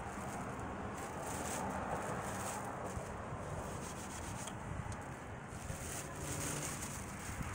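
Clear plastic packaging bag rustling and crinkling as it is handled and pulled off an electric griddle, with sharper crackles about a second and a half in and again near the end.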